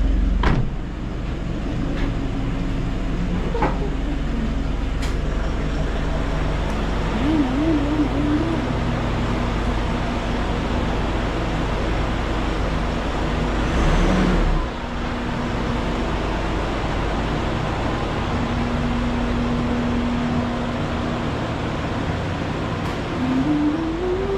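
Vehicle on the move: steady engine and road noise with a low rumble, the engine note rising near the end as it speeds up.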